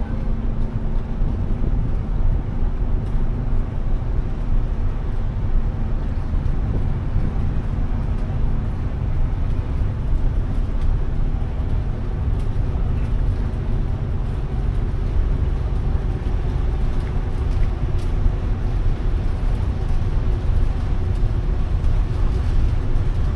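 Steady low engine rumble of the Edwin H. Gott, a large Great Lakes ore freighter, running its diesel engines, with a faint steady hum over it for the first several seconds.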